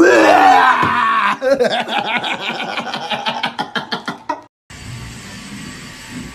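A person screams loudly in fright, the pitch sliding up and then down, then breaks into rapid pulsing cries. These cut off abruptly, and a steady hum and hiss follows.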